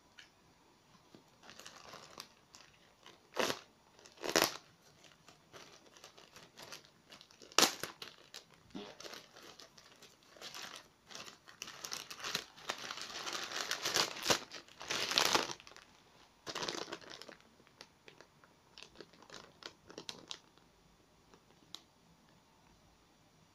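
Thin plastic mailer bag being torn open and handled: irregular crinkling and rustling with a few sharp rips in the first third, the loudest stretch of rustling about halfway through, then light crackles as the plastic product pouch inside is handled.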